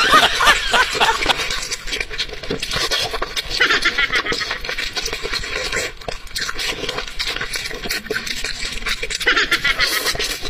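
Close-miked eating sounds: wet chewing, lip smacks and mouth clicks as chicken is torn apart and eaten by hand, with many short clicks and smacks throughout.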